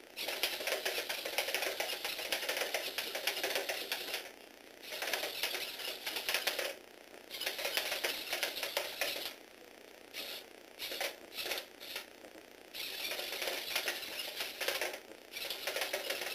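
Lego Technic robot dog walking under a small toy electric motor (from a Tomy Aero Spider): a whirring, clicking rattle of plastic gears and legs tapping on the table. It runs in stretches of a few seconds with brief pauses, and starts and stops several times in quick succession in the middle.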